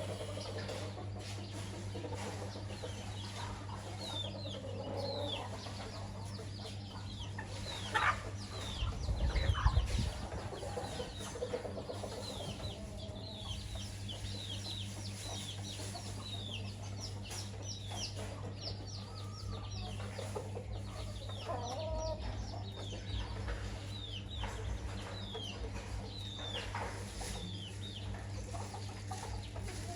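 Hen clucking low while many chicks peep in short, high, falling chirps throughout. A louder low rumbling thump comes about eight to ten seconds in, over a steady low hum.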